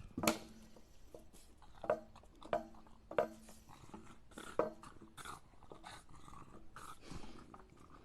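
A dog making a series of short, quiet vocal sounds, about seven in all, somewhere between grumbles and whines.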